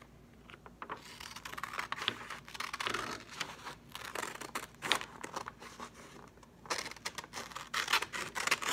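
Scissors cutting through a sheet of drawing paper: a run of crisp snips with paper rustling, pausing briefly near the start and again about six seconds in.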